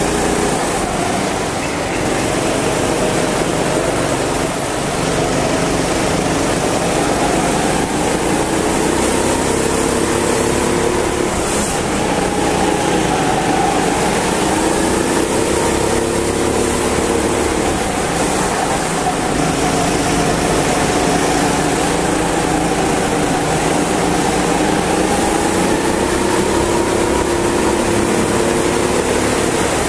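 Go-kart engine running hard on track, its pitch rising and falling over and over as the kart accelerates out of corners and lifts into them, with other karts' engines close by.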